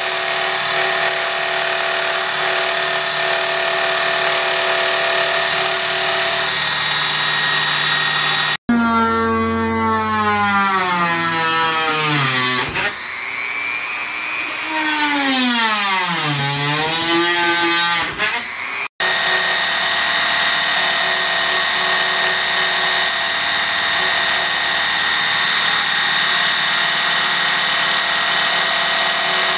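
Dremel Moto-Saw scroll saw running steadily while cutting thin fibreboard. About nine seconds in it cuts to a small corded rotary tool drilling holes, its motor pitch falling and rising again several times. About nineteen seconds in the scroll saw's steady running returns.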